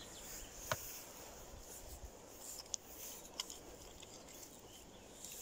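Quiet outdoor background hiss with three faint, short, sharp clicks spread across a few seconds.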